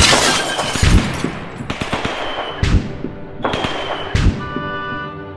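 Battle sound effects: a run of heavy explosions about a second apart, with crackling gunfire between them. Music begins near the end.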